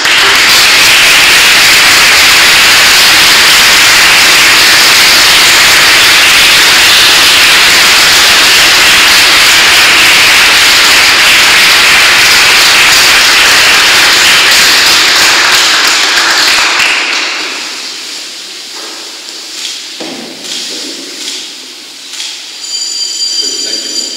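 Applause from a choir, loud and steady for about seventeen seconds, then dying away.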